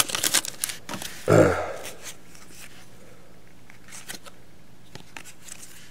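Foil wrapper of a trading card pack crinkling as the cards are pulled out, then faint clicks of the cards being slid and flipped. A brief voiced sound, like a short hum, comes about a second in and is the loudest thing.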